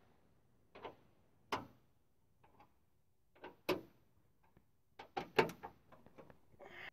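Irregular clicks and knocks from a ratchet with a 10 mm socket unbolting the factory rear-deck subwoofer, with a quicker run of clicks about five seconds in.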